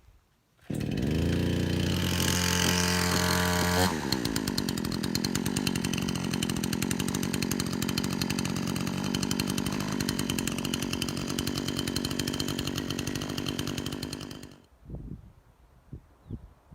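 Chainsaw running at high revs: a steady engine whine that comes in suddenly, turns rougher and denser about four seconds in as it bites into firewood, and cuts off suddenly after about ten more seconds.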